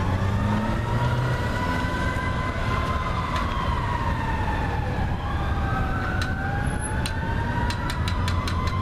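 Fire apparatus sirens wailing: two slow rising-and-falling tones overlapping, over the steady low rumble of idling traffic.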